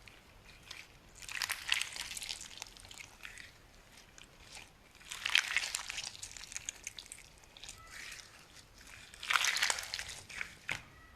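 Slime being squeezed and pressed by hand, making three bursts of fine crackling and popping about four seconds apart, with small clicks in between.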